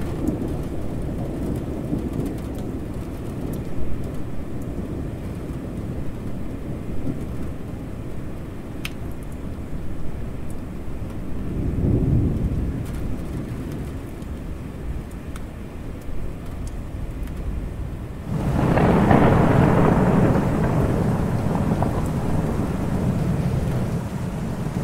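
Thunderstorm: rain falling steadily under a continuous low roll of thunder. A distant rumble swells about halfway through. Then, about three-quarters in, a louder, closer thunderclap breaks suddenly and rumbles on, slowly fading.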